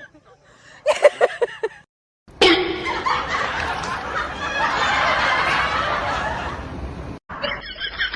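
Laughter in short edited clips: a brief snicker, then after a cut a sudden loud outburst and about five seconds of dense, noisy laughter that swells and fades, then quick rhythmic giggling near the end.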